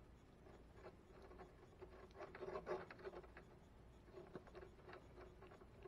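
Faint small clicks and rustles of a wire stripper and stranded copper wire being handled, thickest a little past the middle.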